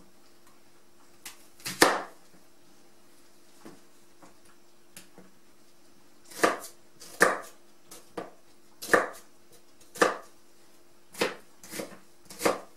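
Chef's knife slicing a peeled onion on a plastic cutting board. One cut about two seconds in, then a steady run of cuts about one a second from about six seconds on.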